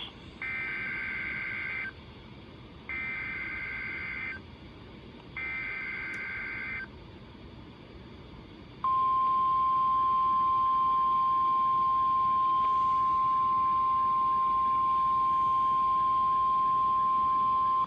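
NOAA Weather Radio Required Weekly Test opening over the weather radio receiver: three short bursts of EAS/SAME digital header data, each about a second and a half with a short gap between, then a pause and the steady 1050 Hz warning alarm tone held for about nine seconds. A faint hiss of the radio signal lies underneath.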